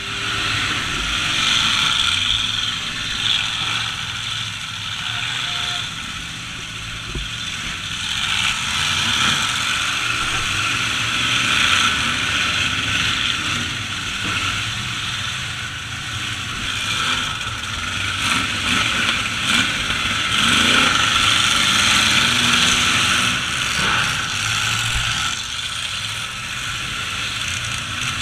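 Engines of demolition derby trucks running and revving under a steady, dense noise.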